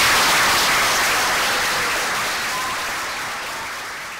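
Audience applauding, the clapping fading steadily away.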